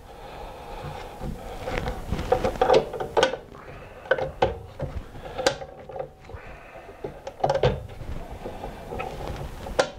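Scattered metal clicks and light knocks as a miter saw's outer blade washer and arbor bolt are handled and fitted back onto the arbor.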